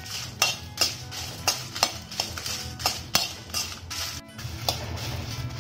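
Metal ladle scraping and clinking against a metal kadai as dried red chillies are stirred and dry-roasted, about three strokes a second. Background music plays under it.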